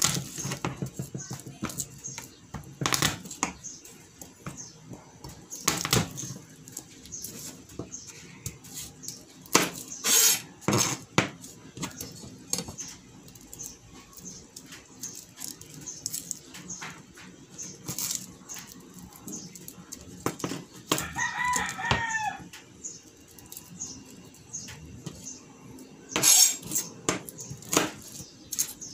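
Kitchen knife cutting garlic on a plastic cutting board: scattered chops and taps of the blade on the board, with pauses between them. A rooster crows once, about 21 seconds in.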